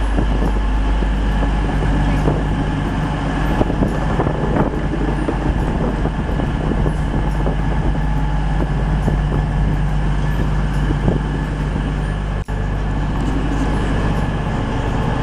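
Passenger train standing at a station platform with its engine running: a steady, loud hum over a low rumble, with a brief break about twelve seconds in.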